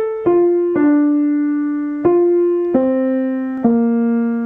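Piano played by hand: a slow line of single notes, about five struck one after another, each left to ring and fade, the melody stepping mostly downward.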